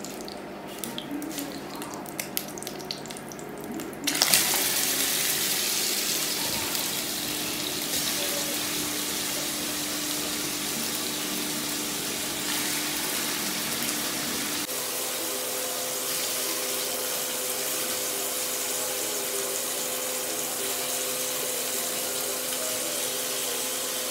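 Chicken pieces frying in hot oil in a stainless steel pot: a steady sizzle that starts suddenly about four seconds in, as the first pieces go into the oil.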